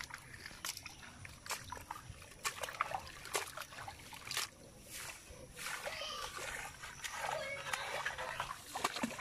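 Shallow water sloshing and splashing in irregular bursts as hands grope through flooded grass for eels, with water splashing into a plastic bucket partway through.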